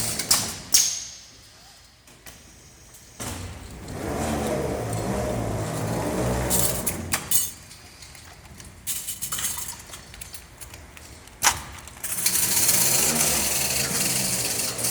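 Refrigerator evaporator tube-expanding machine working through its cycle. Its motor runs steadily for a few seconds at a time, with quieter pauses between, and sharp metallic clicks and clanks come about a second in, near the middle and shortly before the last run.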